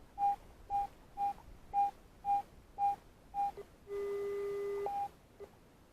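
Garrett AT Pro metal detector sounding a target: short high beeps on one pitch, about two a second, as the coil sweeps back and forth over it. Then a steady lower tone holds for about a second, followed by one more short beep.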